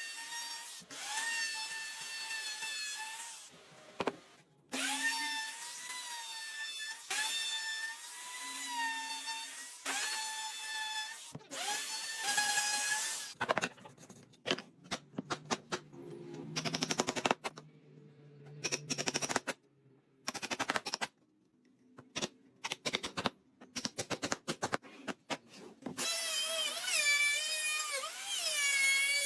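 A handheld power tool, likely an electric drill, whining in bursts of two to three seconds that dip in pitch under load. After that comes a run of sharp, irregular clicks and knocks, and near the end the motor runs again with a wavering pitch.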